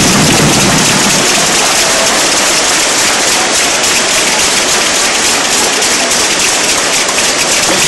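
Arena crowd applauding, a dense, steady wash of clapping.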